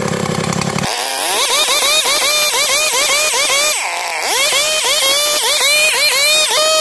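Two-stroke chainsaw cutting through a teak log. Its engine whine rises and falls over and over, about two or three times a second, as the saw loads and recovers in the wood, with one deeper dip midway. For about the first second it runs with a heavier, lower sound before the cutting whine takes over.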